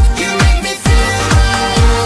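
Electronic dance music with a steady four-on-the-floor kick drum, a little over two beats a second, under sustained synth notes.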